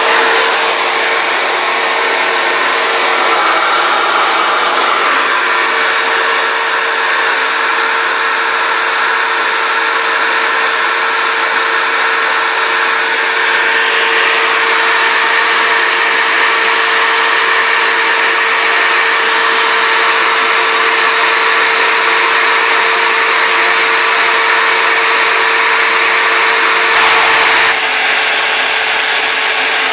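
A CNC router's spindle and a vacuum dust extraction running together, a loud steady whir with a constant tone under it. The sound shifts slightly near the end.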